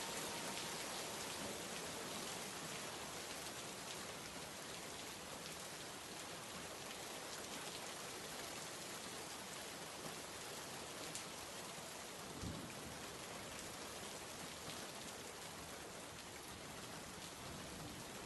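Steady rain: an even hiss with a faint patter of drops, easing slightly in level. The last music note fades out in the first second, and there is one soft low thump about twelve seconds in.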